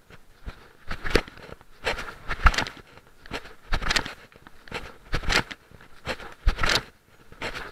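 Irregular rustles and knocks close to the microphone, a short burst every half second or so.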